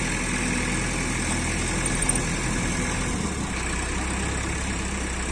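JCB 3DX backhoe loader's diesel engine idling steadily, its low hum dropping slightly in pitch about three seconds in.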